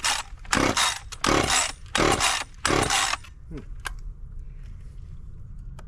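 Husqvarna 540 XP Mk III chainsaw being pull-started cold: about five quick pulls on the recoil starter cord in the first three seconds, the engine turning over without catching. The owner puts the failed start down to too little fuel primed.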